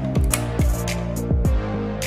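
Background music with a steady beat: deep kick drums hitting about four times, short cymbal or hi-hat hits, and held synth tones underneath.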